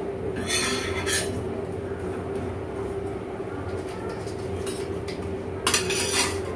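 Metal kitchen utensils clattering against a pan and a steel bowl in two short spells, about half a second in and again near the end, over a steady low hum.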